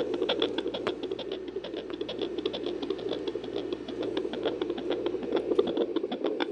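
Fetal heartbeat through a handheld fetal Doppler's speaker: a fast, rhythmic train of whooshing clicks at about 136 beats per minute, over a steady whooshing background from the placenta.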